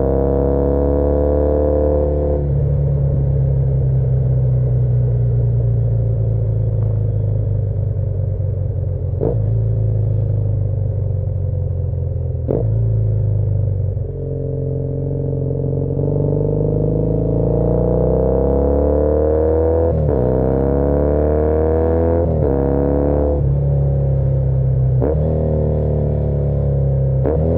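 2013 Triumph Bonneville T100 parallel-twin engine pulling under way. The pitch climbs and then falls back sharply at several short breaks, as the bike shifts through the gears.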